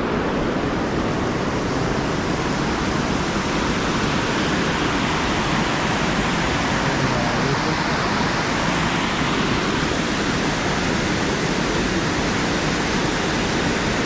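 Waterfall: river water rushing over a rocky lip and dropping into a gorge, a steady, even rushing noise at close range.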